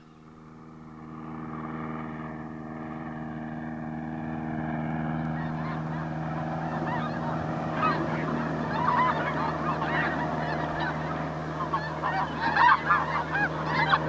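Single-engine light aircraft's piston engine droning steadily, fading in over the first couple of seconds. From about six seconds in, many overlapping honking bird calls join it, loudest near the end.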